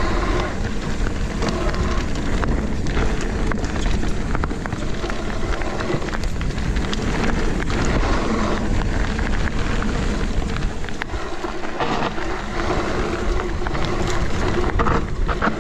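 Mountain bike riding fast down a rough trail: a steady rush of tyres over dirt and rock, with many quick knocks and rattles from the bike, and wind buffeting the microphone.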